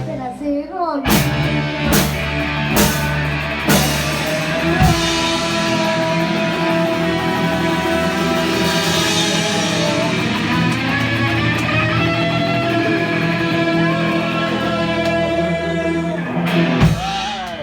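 Rock music with electric guitar, drums and singing: a few drum hits in the first seconds, then a long held closing chord with a voice over it, cut off by a final hit near the end.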